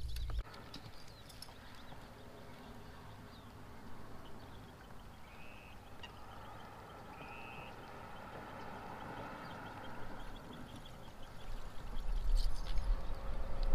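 Quiet open-water ambience with faint, distant bird chirps. A low rumble comes in near the end.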